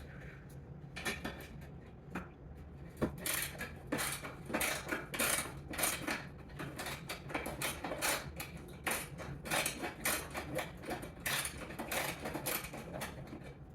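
Double ratchet wrench clicking and clinking metal as a nut is worked loose, a dense, irregular run of metallic clicks.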